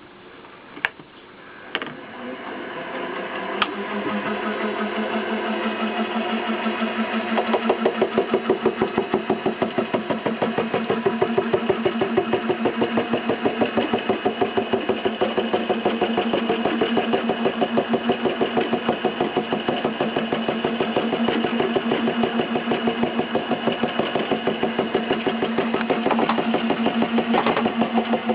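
Milling machine running a form cutter through a Delrin gear blank to cut a helical gear tooth: a few clicks at the start, then a steady machine hum with a rapid, even pulsing that builds up over the first several seconds as the cut gets going and then holds steady.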